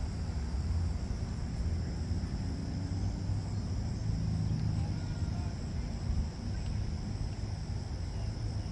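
Wind buffeting the microphone in a low, gusty rumble, over a steady high trilling of insects.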